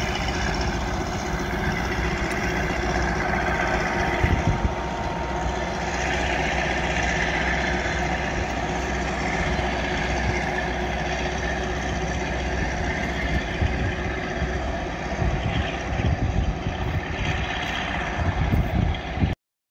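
Slow diesel-hauled train running away from the listener on a curve: the Caterpillar-engined Alsthom locomotive working and the wheels rolling on the rails, a steady rumble with some louder bumps late on. It cuts off suddenly just before the end.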